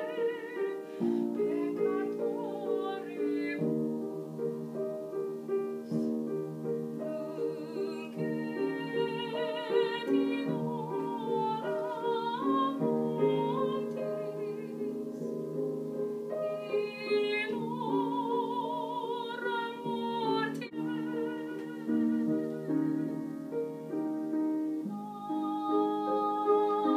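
A woman singing in an operatic style with wide vibrato, accompanied by a piano; her voice climbs to high held notes in several phrases over sustained piano chords.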